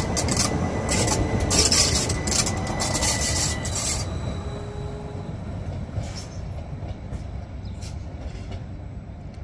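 Rhaetian Railway ABe 8/12 Allegra electric train running past close by: its wheels clatter and squeal on the rails with a steady high squeal, which stops about four seconds in. The train then fades as it pulls away, with a few faint clacks.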